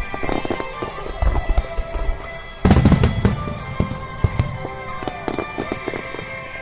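Fireworks shells bursting in rapid succession, with sharp crackles and booms, the loudest heavy boom about two and a half seconds in. Music plays underneath.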